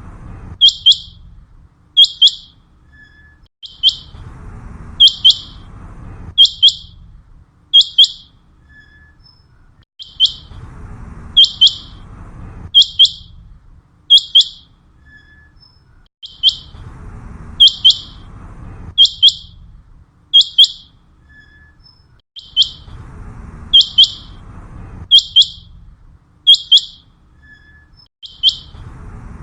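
Common quail calling: sharp, high notes in quick clusters, the phrase repeating at an even pace about every six seconds.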